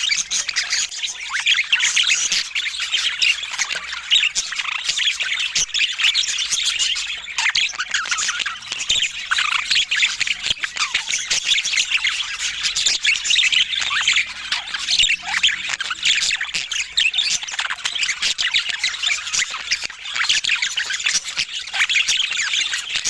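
Budgerigars chattering: a dense, unbroken stream of short, overlapping chirps, squeaks and warbles.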